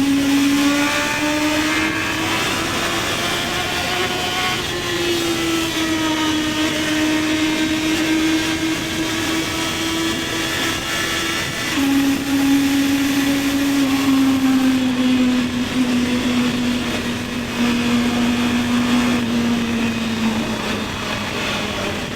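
Honda CB650R's inline-four engine pulling under way. Its pitch rises over the first few seconds, then holds steady, drops suddenly about twelve seconds in as the bike shifts up, and sinks slowly as it eases off toward the end.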